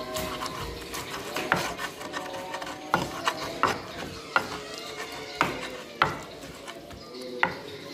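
Stone pestle (ulekan) grinding and crushing chilies and tomatoes in a clay mortar (cobek) for sambal: a wet rubbing with sharp knocks of stone against clay every second or so.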